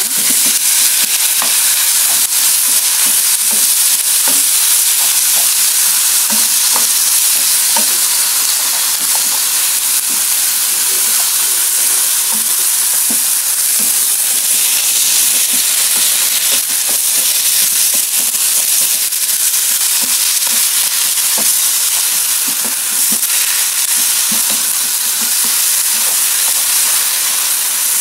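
Thin slices of raw beef sizzling in hot oil with sliced onions in a non-stick frying pan, being stir-fried with a wooden spatula. A steady loud hiss runs throughout, with small ticks and scrapes from the spatula and spitting fat.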